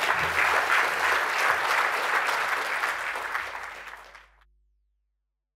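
Audience applause, a dense patter of many hands clapping, fading out about four seconds in.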